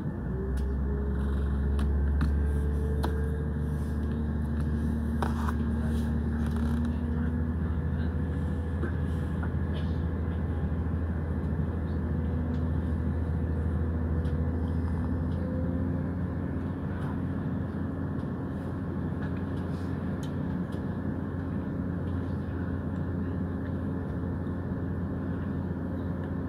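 Diesel multiple-unit train pulling away and gathering speed, heard from inside the carriage: the engine note rises over the first several seconds above a steady deep rumble, then settles into a steady running drone.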